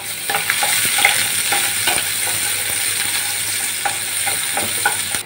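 Halved shallots and curry leaves sizzling in hot oil in a metal pan, stirred with a wooden spatula that scrapes and taps against the pan many times.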